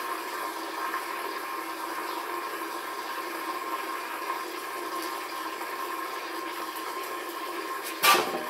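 Water rushing out of a well system's pressure tank through an opened drain valve and garden hose as the tank's pressure is bled off: a steady hiss with a faint steady tone in it. A sharp knock near the end.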